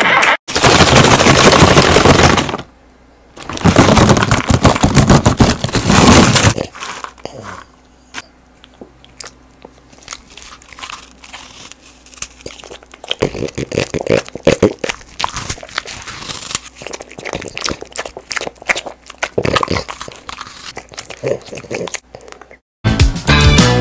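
French bulldog crunching and chewing strawberries close to a microphone: loud dense crunching for about the first six seconds, then quieter scattered chews and mouth smacks.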